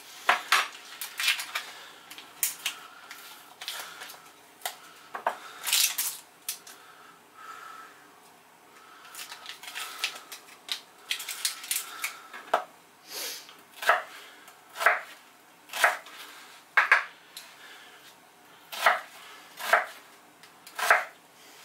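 Kitchen knife cutting a brown onion on a cutting board: scattered knocks of the blade through the onion onto the board, a quieter stretch about halfway through while the onion skin is peeled off, then steady chops about once a second toward the end.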